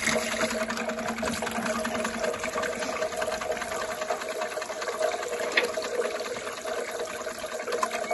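Electric drum-type poultry plucker running with a steady motor hum, its rubber fingers rapidly beating against a scalded broiler chicken held in the spinning drum, with water running from a hose into it.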